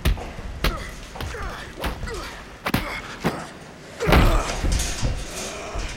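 Punches and body blows landing in a hand-to-hand fistfight, film sound effects. About seven sharp thuds come irregularly, roughly one every half second to a second, with the heaviest blow about four seconds in.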